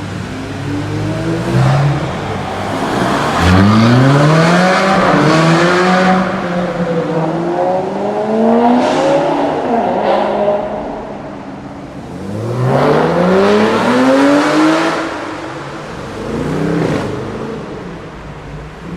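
Supercar engines accelerating hard in a tunnel: several runs, each engine note climbing in pitch and dropping back at every upshift, loudest about four seconds in and again around thirteen seconds in. A few sharp cracks stand out among the runs.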